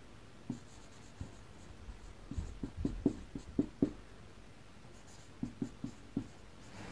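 Dry-erase marker writing on a whiteboard: faint short strokes and taps, a run of them about two to four seconds in and another near the end.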